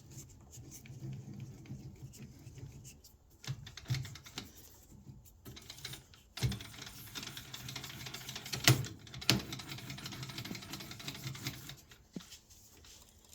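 Old metal lathe's parts clicking and clattering as they are worked, over a low hum that drops out now and then. A few sharper metal knocks come about four and about nine seconds in.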